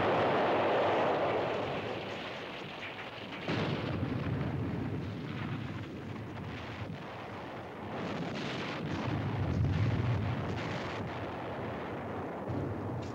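Battlefield artillery fire: heavy rumbling blasts. One is fading at the start, a new one comes about three and a half seconds in, and the rumble swells again around nine seconds in.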